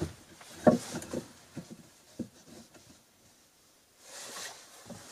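Wooden knocks and clatter of hand tools (a bow saw and an axe) being handled and hung on wooden pegs on a log wall, the loudest knock a little under a second in. A short rustle follows about four seconds in.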